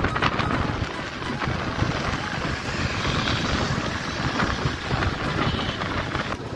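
Wind rushing over the microphone of a moving motorcycle, a steady noisy rush with the road and engine noise mixed in underneath.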